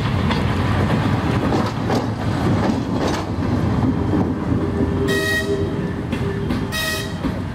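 Narrow-gauge diesel train rolling past close by, with a steady rumble and wheels clicking over the rail joints. Two short horn toots come about five and seven seconds in as it draws away.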